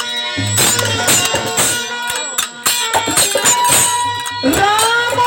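Instrumental accompaniment of a Bhojpuri nirgun folk song: percussion keeps a steady beat under melodic instruments. Near the end a long note enters, gliding up into its pitch and then holding.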